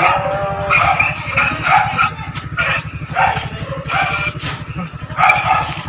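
A dog barking repeatedly, two or three short barks a second, over a low steady rapid throb.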